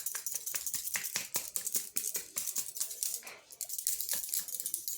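Long dry hair crackling as it is handled: a dense run of quick, irregular snaps and crackles.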